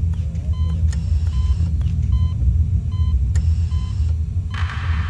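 A patient monitor in an operating room beeps about once a second, its short electronic tones switching between a lower and a higher pitch, over a steady low rumble. Near the end a rushing hiss comes in.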